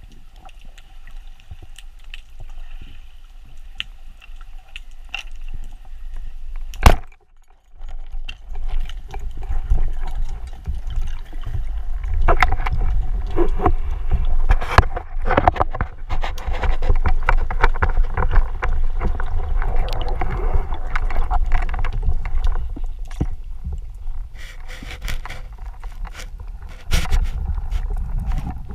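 Underwater sound picked up through a diving camera's housing: a low rumble of moving water with scattered clicks and knocks. About seven seconds in there is a single sharp, loud click, the audio drops out briefly, and the water noise then comes back louder and busier as the diver swims.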